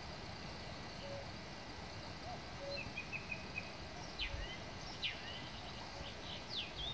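Birds singing over the steady murmur of a river: a songbird's quick chirps and sharp falling notes come in about halfway through, and a faint low two-note call repeats in the background. There are two brief low bumps near the middle and at the end.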